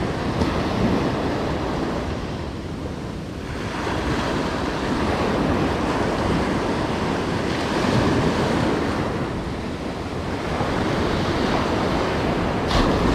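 Surf breaking and washing up a sandy beach, swelling and easing as each wave comes in.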